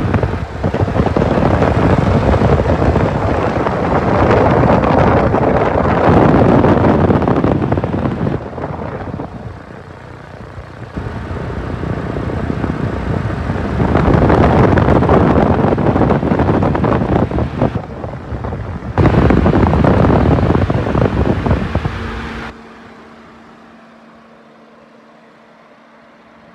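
2018 Schaeff TW 95 wheeled excavator's diesel engine running, with wind buffeting the microphone. The sound dips about eight seconds in and swells again. Near the end it gives way to a faint steady hum.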